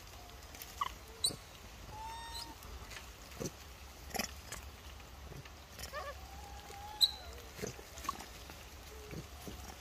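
Baby macaque giving a few short coo calls now and then, with scattered sharp clicks in between.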